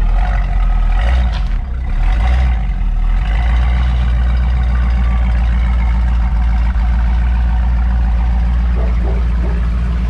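The 1968 Shelby GT500 KR's 428 Cobra Jet V8 running at idle, its note swelling briefly twice in the first few seconds and then holding steady.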